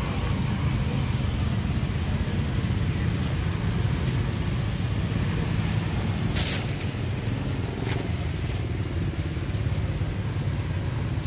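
Steady low background rumble, with a brief rustle about six and a half seconds in and a few faint light clicks.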